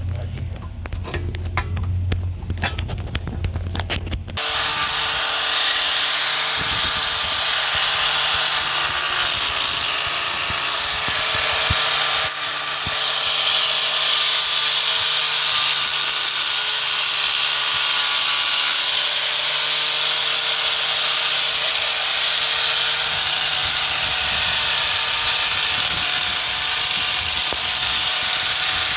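A small high-speed power tool starts suddenly about four seconds in and runs steadily with a high whine, grinding at a broken wheel stud. Before it starts there is a low hum with scattered clicks.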